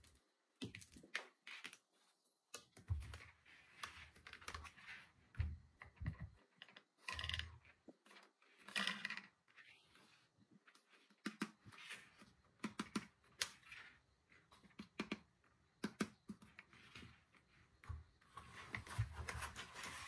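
Handling noise: irregular clicks and taps with a few short rustles as a small plastic mini fan and its packaging are handled.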